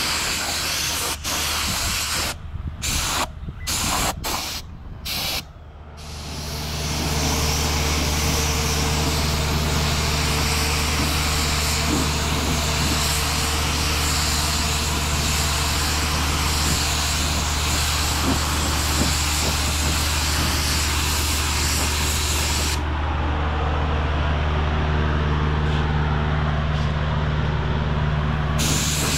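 Paint spray gun spraying satin black: short on-off bursts of hissing air and paint, then a continuous hiss. About six seconds in, a steady low machine hum comes in under it and keeps running.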